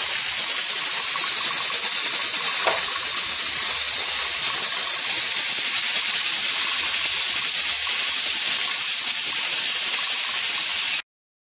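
Presto 23-quart pressure canner under pressure, steam hissing steadily out past its 15-pound weighted pressure regulator. A faint brief tone sounds about two and a half seconds in.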